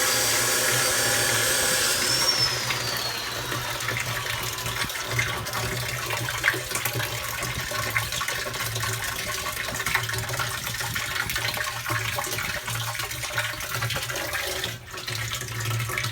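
Water running steadily and splashing from a tap or pipe that has been left on and needs turning off. A high whine in the first couple of seconds glides down and fades away.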